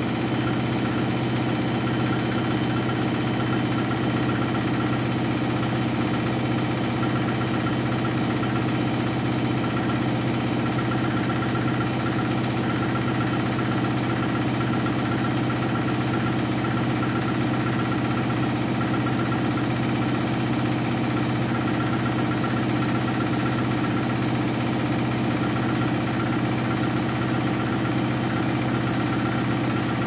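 Candy front-loading washing machine on its 1600 rpm final spin, the drum turning at a steady high speed with an even, unchanging hum and drone.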